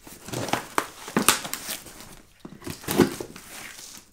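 Cardboard box being cut open with a box cutter: the blade slitting the parcel tape and the cardboard flaps scraping and crinkling in short scratchy crackles, in two spells, the second about three seconds in.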